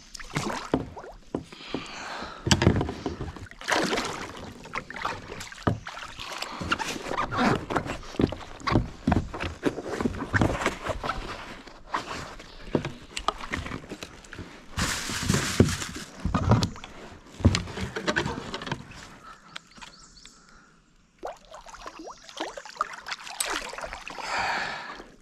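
Kayak being paddled: the paddle splashes and sloshes in the water, with many irregular knocks and clicks. It eases off near the end.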